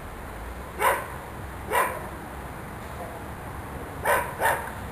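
A dog barking four times, twice spaced about a second apart and then a quick pair.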